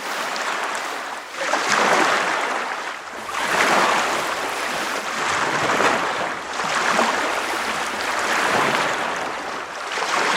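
Ocean surf washing in, a hissing rush of water that swells and fades every couple of seconds.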